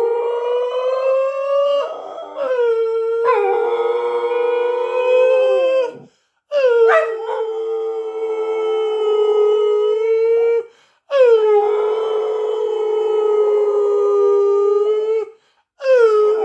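A person and a lurcher howling together in long, drawn-out howls of a few seconds each, at times two voices overlapping with one sliding lower. The howls break off briefly about six, eleven and fifteen seconds in, then start again.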